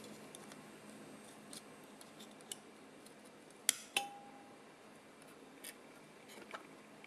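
Faint clicks and taps of small metal hand tools against a circuit board as a mini wireless card is unclipped and lifted from it, with a sharper pair of clicks a little before four seconds in.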